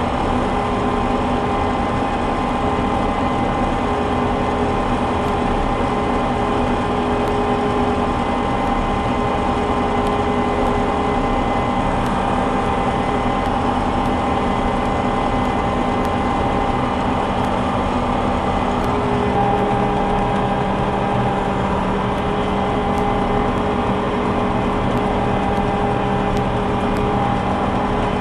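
A small combine harvester running steadily while cutting soybeans: a continuous engine and machinery drone with several steady tones through it.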